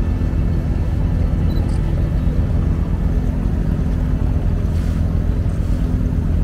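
Abra water taxi's inboard diesel engine running steadily under way, a constant low drone heard from on board.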